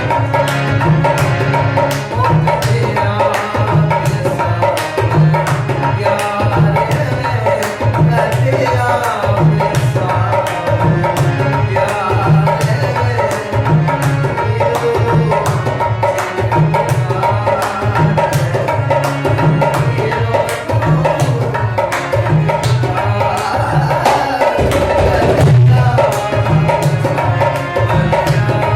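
Instrumental music: a hand drum plays a steady, fast rhythm of deep resonant strokes and sharp slaps, under a sustained melody line, with no singing.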